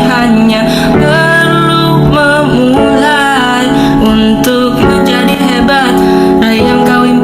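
Background music: a song with a sung melody over guitar accompaniment.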